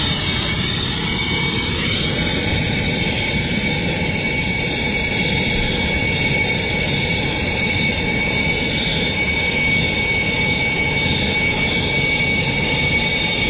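Handheld gas torch burning with a steady roar while its flame heats a copper refrigerant line joint at an AC condenser's service valve for soldering. A thin, steady high whistle runs through the roar.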